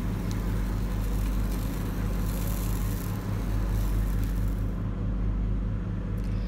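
Steady low machine hum with a regular pulse, under a hiss that fades about five seconds in.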